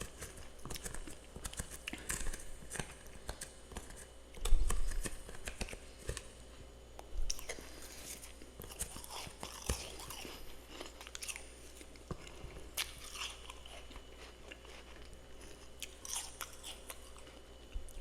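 Close-up chewing and crunching of powdery humidifier frost, a steady run of irregular crisp crunches. A loud low thump about four and a half seconds in.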